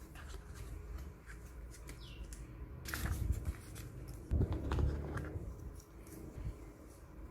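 Hands handling packaging and a laptop: scattered light clicks and rustles, with louder rustling and dull thumps about three seconds in and again between four and five seconds in.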